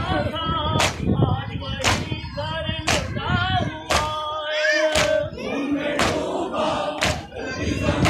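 Shia mourners performing matam: sharp rhythmic slaps of hands on chests, about one a second, under a voice chanting a nauha lament with a long held note near the middle.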